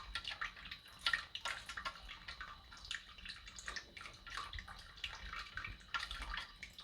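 Faint, irregular light clicks and taps from the work inside a toilet tank during a fill-valve repair.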